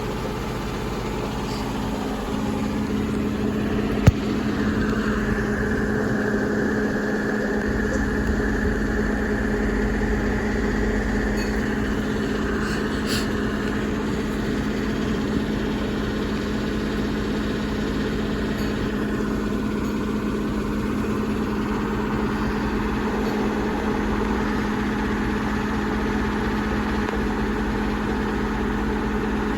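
Washing machine running and rumbling very hard, a steady low rumble with a hum, with a single sharp knock about four seconds in.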